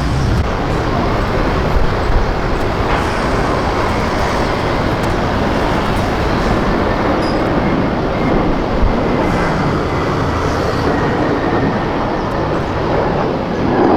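Jet aircraft engines running: a loud, steady rush of noise with a faint thin whine coming in about halfway through.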